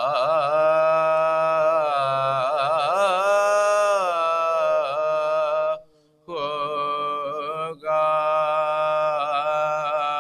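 Men's voices chanting a marsiya, an Urdu elegy, unaccompanied, in long drawn-out phrases with wavering, ornamented notes. The chant breaks off for a breath about six seconds in, then goes on.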